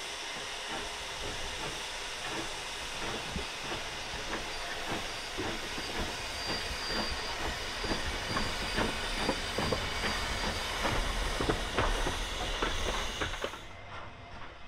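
Kitson-built steam tank locomotive working a train, with a steady hiss of steam and a run of sharp rhythmic beats that grows louder towards the last few seconds. The hiss cuts off suddenly near the end and the sound falls away.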